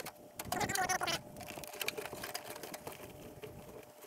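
Corrugated plastic wiring loom being pulled through the engine bay, with fast light clicking and rustling as the ribbed conduit and its plugs drag past plastic panels.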